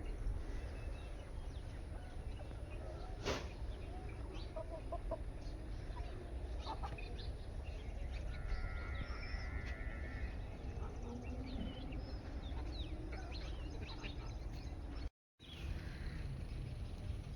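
Chickens clucking and calling here and there over a steady low rumble, with the sound cutting out briefly near the end.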